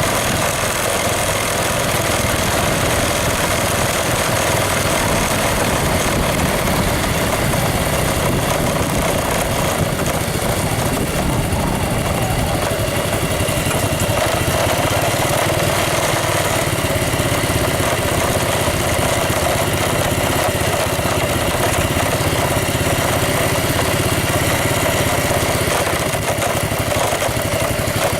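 An engine running steadily the whole time, with a constant dense rumble and no change in pace.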